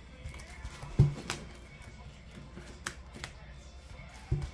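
Ring binders and plastic cash envelopes being handled on a table: a few sharp knocks and clicks, the loudest about a second in, with soft rustling and shuffling between them.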